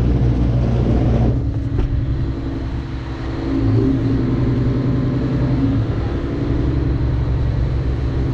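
A yacht's diesel engines idling with a steady low hum, dipping slightly in pitch for a moment midway and then steadying again.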